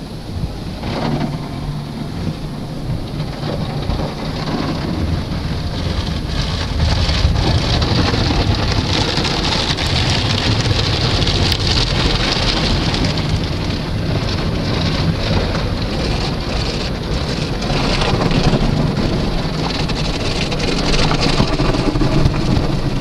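Automatic tunnel car wash heard from inside the car: water jets spraying and pattering on the windows and body, with a low rumble underneath. It grows louder about six seconds in.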